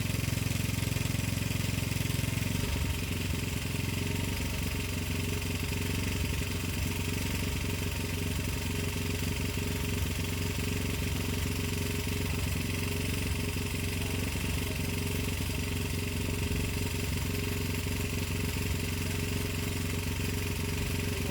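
Generator engine running steadily with a constant hum; its note shifts slightly about three seconds in.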